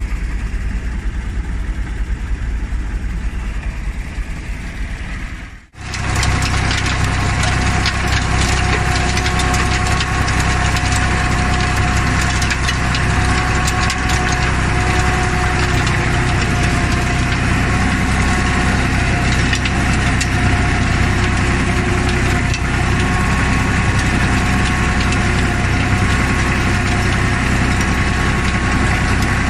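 Shaktiman tractor-mounted rotary tiller running in soil, driven off the tractor's PTO: a steady mechanical rumble of engine and spinning blades. About six seconds in the sound drops out for a moment and comes back as a steady run with a held whine and scattered ticks of clods and stones.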